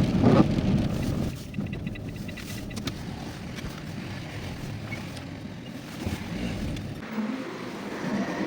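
Renault Kangoo driving on a country road: steady engine and tyre noise. The low rumble thins out about seven seconds in.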